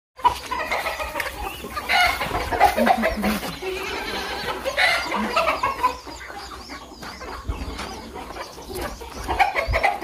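Chickens clucking and squawking in a mixed flock with roosters. The calls come thick and fast for the first six seconds, thin out, then pick up again near the end.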